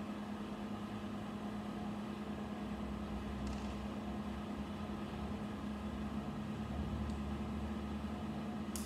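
A steady mechanical hum with a low rumble swelling under it in the second half. A few faint clicks of plastic building bricks are handled and fitted together: one about three and a half seconds in, another about seven seconds in, and one near the end.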